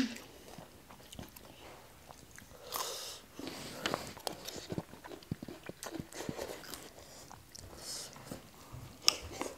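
Two people eating close to the microphone: biting and chewing noodle salad and raw radish, with a noodle slurp a few seconds in. Many short, scattered clicks and smacks run through it.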